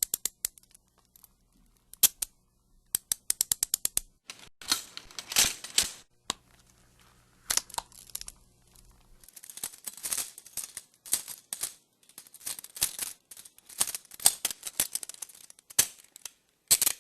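Metal handcuffs being opened and snapped shut: quick runs of ratchet clicks, with denser stretches of clattering between them.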